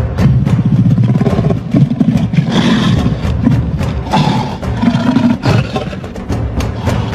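Background music: a percussion-heavy track with a steady drumbeat and deep, booming low drums, swelling twice in the middle.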